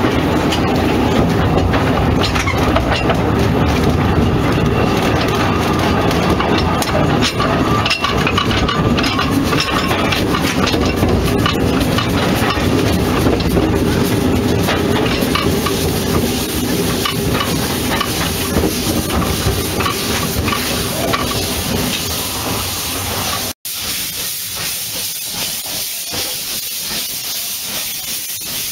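Narrow-gauge steam locomotive heard from its own footplate, running with a steady rumble and hiss. After a sudden break near the end, steam hissing dominates as clouds blow out beside the wheels from the open cylinder drain cocks.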